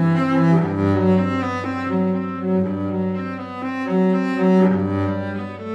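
Background music: slow, held low notes that change about once a second over a steady deep bass tone.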